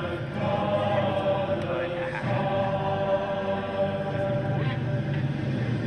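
Voices chanting in long held notes, choir-like, over a steady low hum.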